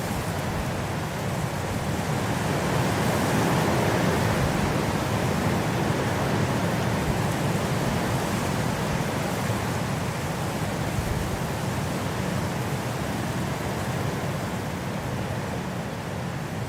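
Steady winter wind rushing, swelling to a louder gust a few seconds in and slowly easing off again.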